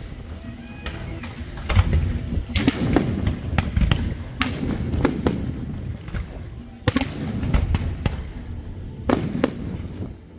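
Aerial fireworks display going off: a dense run of sharp bangs, often several close together, over a steady low rumble.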